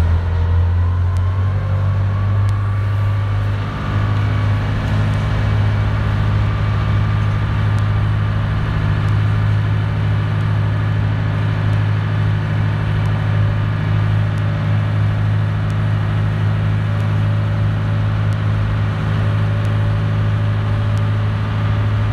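Ferry boat's engine running steadily underway: a loud, low drone that dips briefly and settles a little higher about four seconds in.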